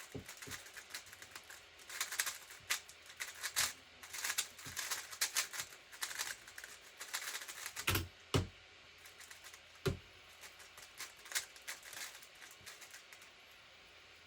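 X-Man Tornado V3 3x3 speedcube being turned at speed: a rapid, uneven run of plastic clicks and clacks as the layers snap round, with a few heavier knocks about two-thirds of the way through, stopping shortly before the end.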